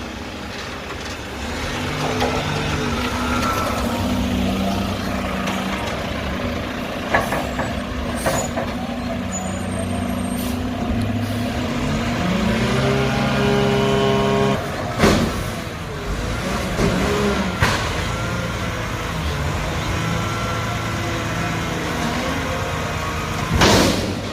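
Garbage truck's diesel engine running, its note stepping up and down and climbing about halfway through as it works. Several short sharp bangs or hisses break in, the loudest near the end.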